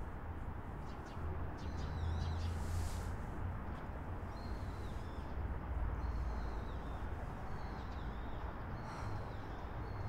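Outdoor ambience: a steady low rumble with small birds chirping in short, repeated calls, more of them from about four seconds in, and a brief hiss near three seconds.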